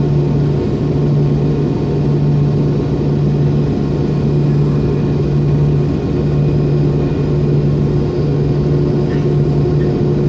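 The MD-90's tail-mounted IAE V2500 turbofans running at low ground power before the takeoff roll, heard inside the rear cabin as a steady, even drone.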